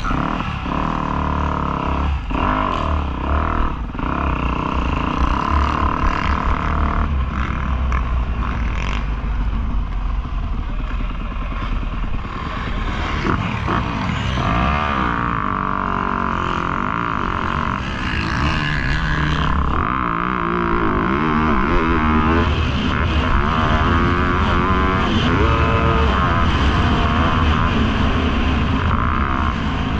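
Motocross dirt bike engine revving hard and easing off again and again as it is ridden around the track, its pitch rising and falling repeatedly. Heard from on board, with wind rushing over the microphone.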